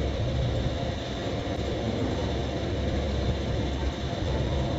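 Steady low rumbling background noise, even in level throughout.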